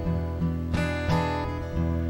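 Acoustic guitar strumming chords on its own, a new strum every half second or so with the strings ringing between.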